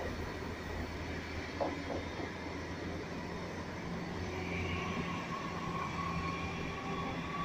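Red double-deck regional passenger train rolling past at a steady speed: an even rumble of wheels on the rails with a faint steady hum, and one sharp knock about one and a half seconds in.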